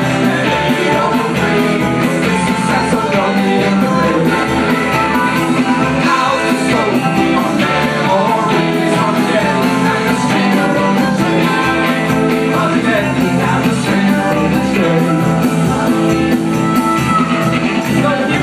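Live band playing rock and roll on upright bass, electric guitar and drums, with a woman singing over it, loud and without a break.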